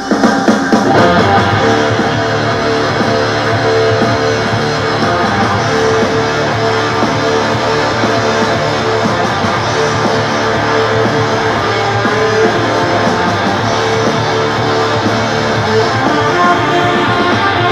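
Guitar music played from a Bluetooth-paired smartphone through a JBL Cinema SB110 2.1 soundbar. It starts suddenly as playback begins and continues at a steady, loud level.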